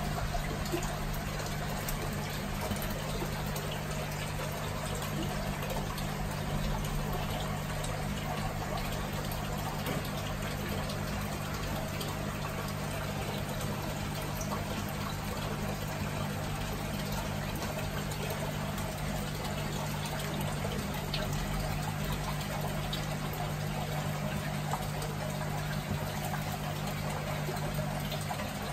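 Aquarium water bubbling and trickling steadily from the tank's aeration and filter flow, with a low steady hum underneath.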